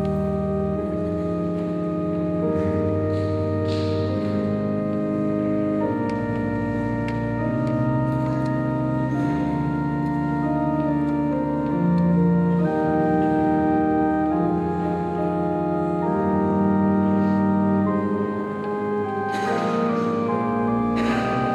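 Organ playing slow, sustained chords over a deep bass line, the chords changing every second or two.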